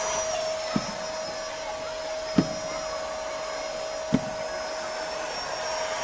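Vacuum cleaner motor running steadily with a constant whine. Three dull thumps come about a second, two and a half seconds and four seconds in.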